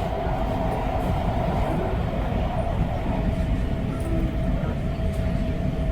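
REM light-metro train running at speed, heard from inside the car: a steady rumble of the wheels on the track with a constant whine over it.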